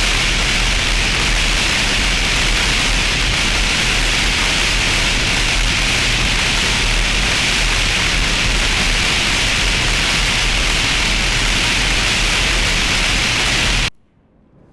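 Steady white-noise hiss, even and unbroken, that cuts off abruptly about fourteen seconds in, leaving only a faint low background.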